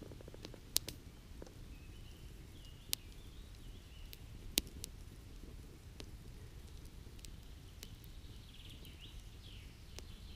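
Quiet outdoor ambience: a steady low rumble with faint bird chirps and a few sharp clicks, the loudest about a second and four and a half seconds in.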